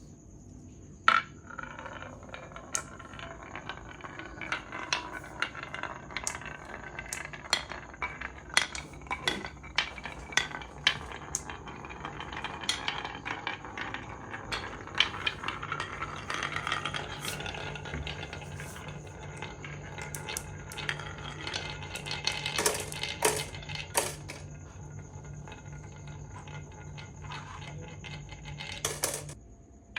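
Marbles rolling through a marble run, with frequent irregular clicks and clacks as they strike the track and each other, over a faint steady low hum.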